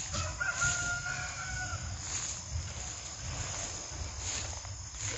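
A rooster crowing once, a single held call of a bit over a second starting about half a second in, over a steady low rumble on the microphone.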